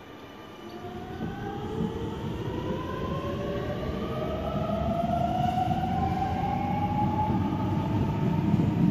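Sydney Trains M-set (Millennium) double-deck electric train pulling away from the platform. Its traction motors whine in a steadily rising pitch as it accelerates, over a growing rumble of wheels on track.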